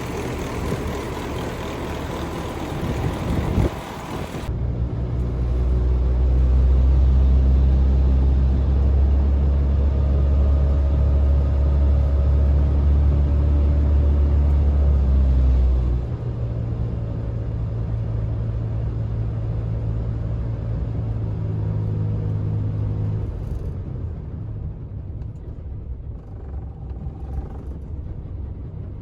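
Hino Profia heavy truck's diesel engine running steadily, a strong low drone with fainter higher tones above it. The sound changes abruptly about four and sixteen seconds in, and it dies down near the end.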